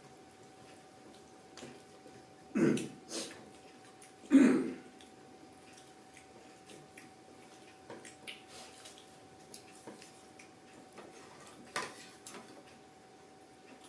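A person clearing their throat twice, about two seconds apart, between faint small clicks.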